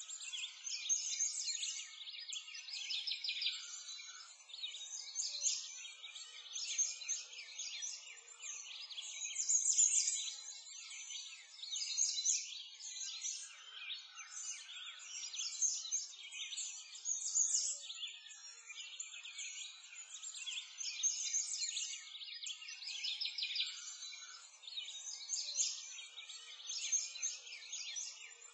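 A dense, steady chorus of high-pitched chirps and trills with no low sounds beneath it, swelling and easing every couple of seconds.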